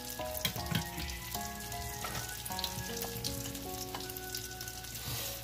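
Oil sizzling and crackling steadily around a cauliflower fritter shallow-frying in a cast-iron skillet. Soft background music notes are held underneath.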